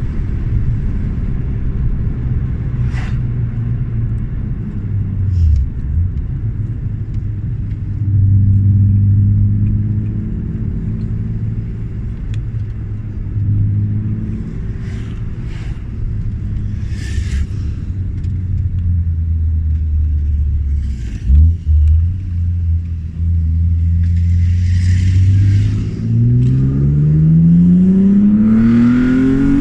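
BMW E36 M3's straight-six engine under way on the road, running at steady revs with a few brief changes in pitch, then revving up hard with a steadily rising pitch over the last few seconds.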